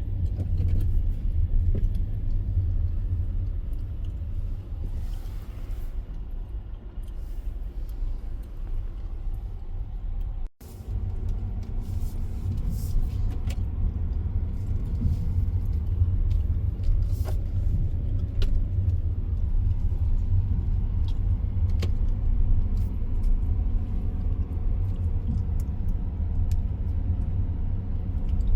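Car driving, heard from inside the cabin: a steady low rumble of road and engine noise with scattered light clicks and rattles. The sound drops out for an instant about ten seconds in.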